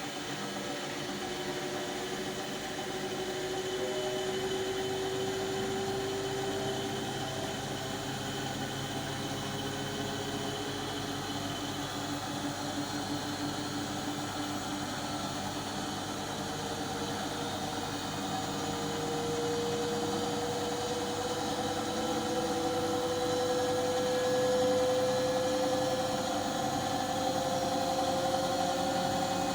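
Washing machine running mid-cycle: a steady mechanical hum and whir with a whining tone that slowly rises in pitch. This is the odd noise the owner noticed during the wash cycle.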